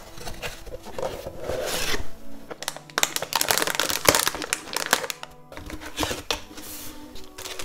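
Cardboard box being opened and its contents handled, with a plastic anti-static bag crinkling loudly in the middle; soft background music underneath.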